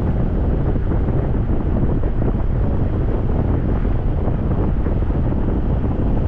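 Rushing air of a hang glider in flight buffeting the camera's microphone: a loud, steady, low wind roar.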